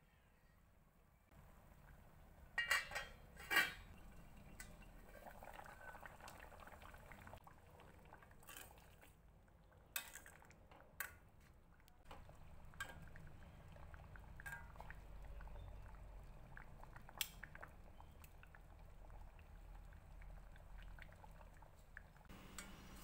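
Coconut and potato curry simmering in a steel pan, with a steel ladle clinking against the pan several times as it is stirred; the loudest clinks come as a pair about three seconds in.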